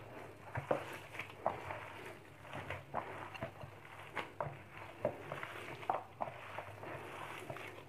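Gloved hand mixing sliced potatoes and onion into a wet gram-flour batter in a bowl: irregular soft squishes and light taps, over a faint steady low hum.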